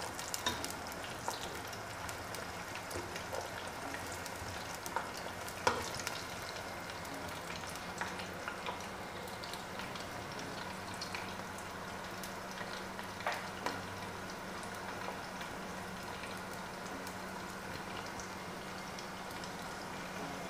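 Sliced onions frying in hot oil in a pot: a steady sizzle with scattered crackles and pops, the onions still pale early in their frying. A wooden spoon stirs through them at the start.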